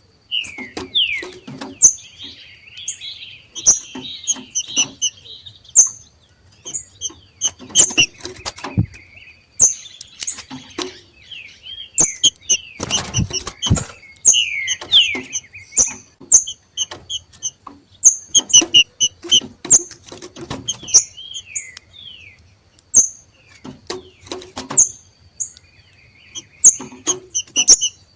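Green-winged saltators (trinca-ferro) giving their excited 'macheado' chatter: a string of quick downward-slurred chirps and high ticks mixed with sharp clicks and rustling. This is the call of birds coming into breeding condition and disputing territory.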